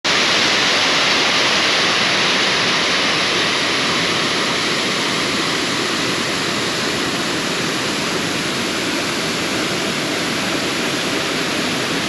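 Wapta Falls, a large waterfall on the Kicking Horse River, with its water rushing in a loud, steady, unbroken wash of noise.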